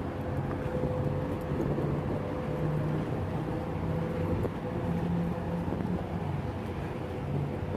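A steady engine drone with a low hum and a held higher tone over continuous outdoor background noise.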